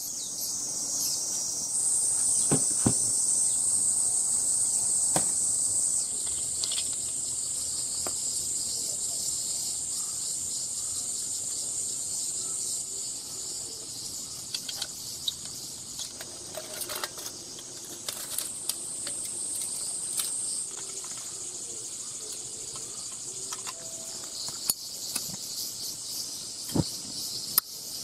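Insects calling in chorus, a steady high-pitched drone that swells louder for several seconds and then eases. A few sharp clicks and knocks from handling a small metal stove.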